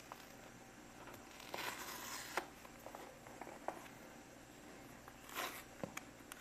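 Faint tearing and rustling of packaging as the seal on a smartphone box is pulled off: two short tearing scrapes, about a second and a half in and again near the end, with a few small clicks between.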